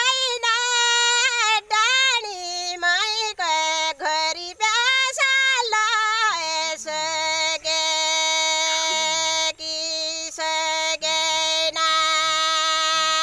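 A woman singing a Thadi Bhaka, a far-western Nepali folk song, unaccompanied in a high, strong voice. She sings wavering, ornamented phrases that step down in pitch, then holds one long note through the second half, broken only by short breaths.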